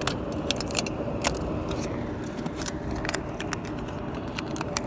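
Irregular clicks, taps and crinkles of hands working a plastic dryer vent hood and its flap and foil duct tape, over a steady rush of air from the running clothes dryer's exhaust.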